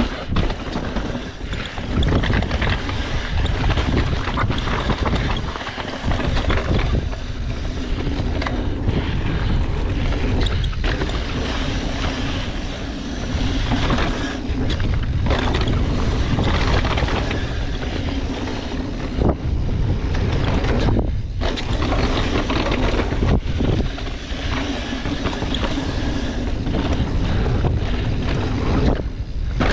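Wind buffeting a GoPro Hero 8's microphone on a fast downhill mountain bike run, with the tyres running over a dirt trail and the bike rattling over bumps. The sound drops out briefly several times.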